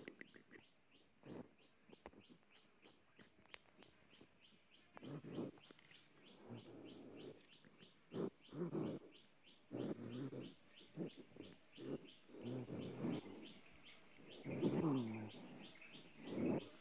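Rapid, regular high chirping, about four chirps a second, over a thin steady high whine. Low scuffling noises come and go, the loudest about three quarters of the way through.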